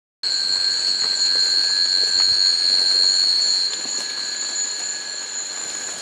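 Rainforest insect chorus: several steady high-pitched trills on different pitches layered together. The highest trill and a lower one drop out about three and a half seconds in, and the chorus gets quieter.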